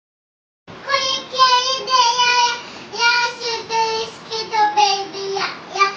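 A young child singing in a high voice with held, gliding notes, starting abruptly after a moment of dead silence.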